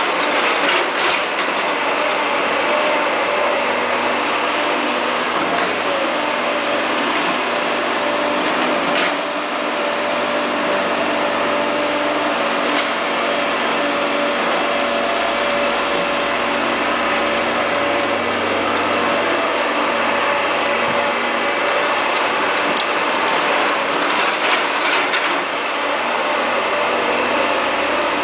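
Caterpillar E240B hydraulic excavator's diesel engine running steadily, with a steady whine over it and a few clicks and knocks from the digging.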